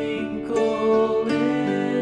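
Background music: a light instrumental tune, with a new note about every half second.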